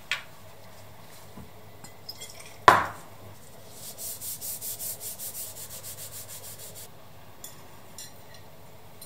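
A sharp knock, then a cloth rubbed quickly back and forth over a steel knife blade, about six strokes a second for around three seconds.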